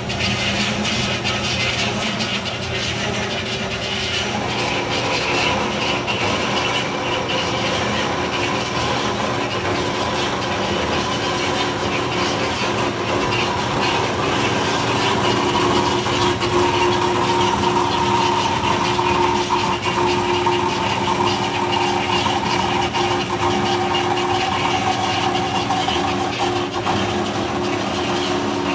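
Power saw cutting steel stock: a steady machine sound with held tones, and a whine that slowly drops in pitch through the second half.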